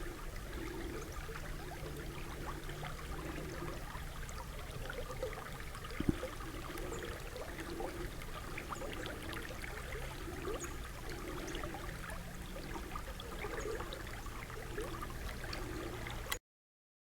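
River rapids rushing and burbling steadily, with a single sharp tap about six seconds in; the sound cuts off suddenly near the end.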